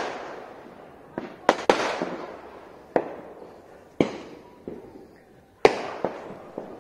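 Aerial fireworks going off overhead: about eight sharp bangs at uneven intervals, some in quick succession, each trailing off in a rolling echo.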